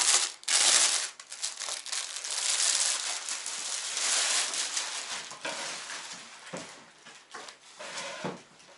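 Clear plastic packaging crinkling and rustling as packaged clothes are handled, steady and fairly loud for the first half, then in sparser, quieter rustles.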